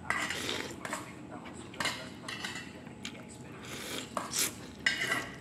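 A metal spoon scraping and clinking against a plastic bowl of noodle soup and rice, a string of short irregular strokes a few times a second.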